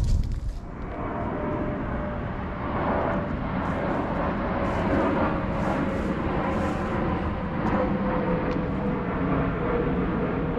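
Airplane flying overhead: a steady rushing engine noise that builds in about a second in, with a faint whine drifting slowly lower in pitch. A brief low bump on the microphone right at the start.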